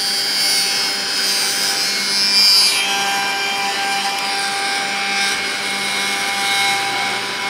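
Lunyee 3018 Ultra desktop CNC's 500-watt spindle running steadily, its V-bit engraving a thin metal disc: a steady whine with a scraping hiss of the cut. The disc has worked loose from its tape hold-down.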